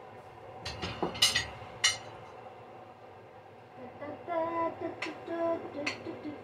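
Sharp clinks of dishes and kitchen utensils, several in quick succession about a second in. In the last couple of seconds a person's voice is heard low and wordless.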